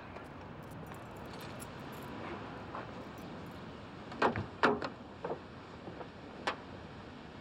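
Car door being unlocked and opened: a couple of sharp clunks close together about four seconds in, then a few lighter clicks, over a steady street background.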